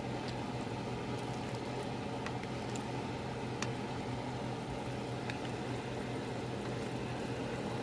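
Pot of ground beef vegetable soup boiling on the stove: steady bubbling with a few sharp pops, over a low steady hum.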